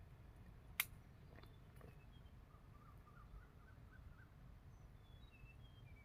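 Quiet outdoor ambience with faint, scattered bird chirps and a short rippling trill in the middle, broken by a single sharp click just under a second in.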